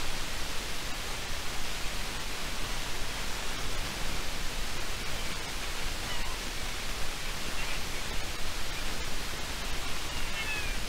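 Steady rushing noise picked up by an outdoor river webcam's microphone, with a few faint high chirps about six seconds in and again near the end.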